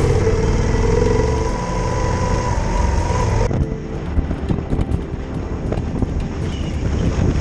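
Yamaha XT1200Z Super Ténéré's parallel-twin engine running at road speed, with wind rumbling on the microphone. About halfway through the sound changes abruptly: the steady engine hum gives way to a rougher, windier rumble.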